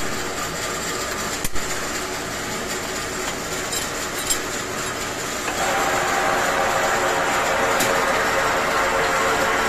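Metal lathe with a three-jaw chuck: a couple of sharp metal clicks while the flange blank is clamped over a steady machine hum. About halfway through, the spindle starts and the chuck spins, and the running hum gets louder and more tonal.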